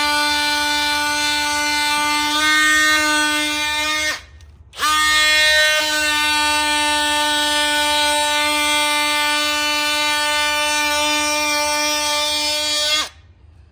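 A high-speed power sanding tool whines steadily as it sands the old sticker glue and rubber off a tire's sidewall. It stops about four seconds in, starts again half a second later, and cuts off near the end.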